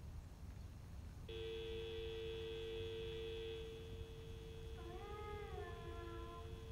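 A telephone dial tone, the steady pair of tones near 350 and 440 Hz, comes on suddenly about a second in and keeps going. Near the end a cat gives one long meow that rises and then falls in pitch.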